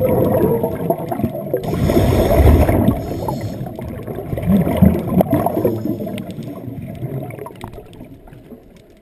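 Scuba diver's regulator exhaust bubbles gurgling underwater, heard through the camera housing, fading out over the last few seconds.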